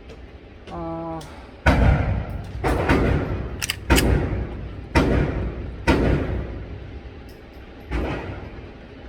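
Tisas PX9 Gen 3 9mm pistol fired about six times, roughly a second apart with a longer pause before the last shot, each report echoing. A short buzzing beep sounds just before the first shot.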